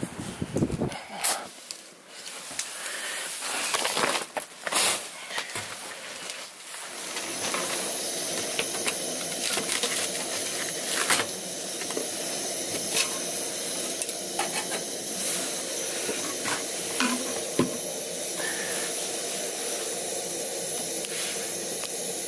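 Clicks and knocks of gear being handled, then about seven seconds in a camp stove burner starts and runs with a steady hiss.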